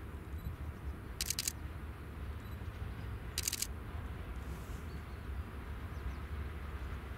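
TGM6A diesel-hydraulic shunting locomotive's diesel engine running with a steady low rumble as it hauls a freight train. Two short bursts of high-pitched clicking come about a second in and again about three and a half seconds in.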